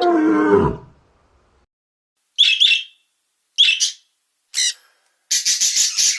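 An animal call sliding down in pitch, then after a pause a few short high bird chirps or squawks, ending in a quick run of them.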